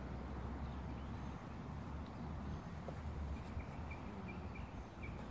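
Outdoor park ambience: a steady low rumble with faint high chirps in the second half.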